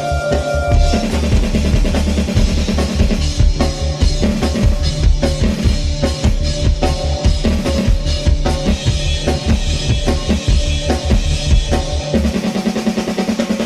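Music with a fast, driving drum beat and deep bass; the deepest bass drops out near the end.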